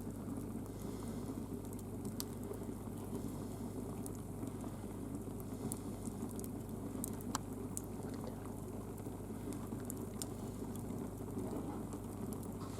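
Firewood burning in an open fire: a steady low rush of flames with occasional sharp crackles and pops from the burning logs.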